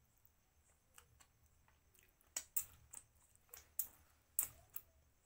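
Eating mutton curry by hand: quiet chewing, then a run of about seven sharp, wet mouth clicks and lip smacks over the second half as the fingers are sucked clean.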